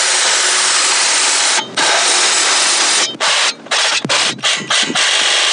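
Ryobi cordless reciprocating saw with a metal-cutting blade sawing through an aluminum angle bracket, the blade lubricated. It cuts steadily, breaks off briefly a little under two seconds in, runs in several short stop-start bursts through the middle, then cuts steadily again near the end.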